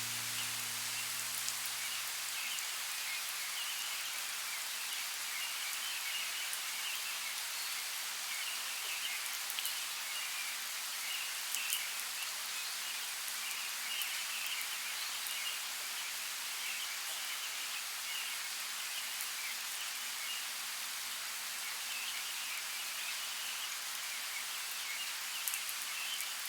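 Steady light rain falling in a forest, with a few sharper drips and faint high chirping, described as birdsong, flickering through the hiss.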